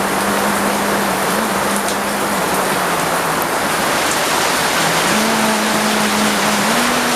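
Heavy rain falling steadily, an even dense hiss of rain. Under it a low humming tone stops about halfway through and comes back near the end.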